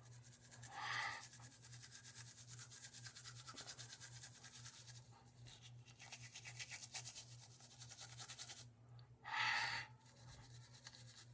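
Toothbrush scrubbing teeth in quick, faint strokes, with two louder swishes, about a second in and near the end.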